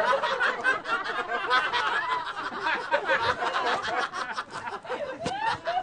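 A group of people laughing and chuckling, many voices overlapping.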